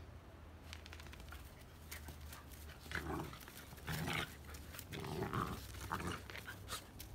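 Two terrier puppies play-fighting, growling in several short bursts from about three seconds in, with scuffling and clicks as they tussle on the dirt.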